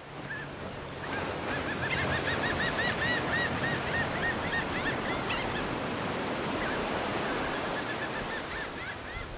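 Surf washing steadily onto a beach, with birds calling in a fast run of repeated short notes from about a second in until about halfway, and a few more calls near the end.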